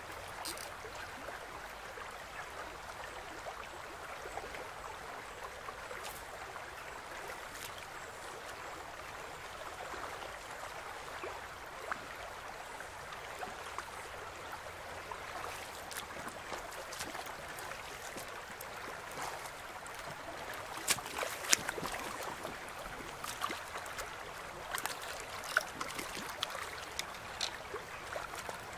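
Shallow river running over stones: a steady rushing, babbling water sound. From about two-thirds of the way in, a cluster of sharp clicks and knocks sits over the water sound.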